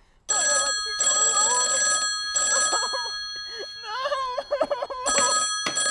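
Desk telephone ringing in repeated bursts, a bright multi-tone ring that stops for a moment in the middle and starts again near the end.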